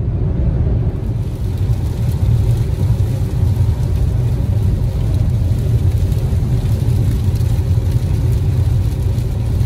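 Steady low road and engine rumble heard inside a car cruising at freeway speed on a rain-wet road.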